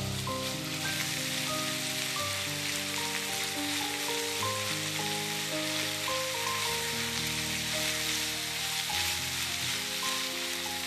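Food sizzling steadily in a hot frying pan, a dense even hiss. Soft instrumental music with sustained notes plays underneath.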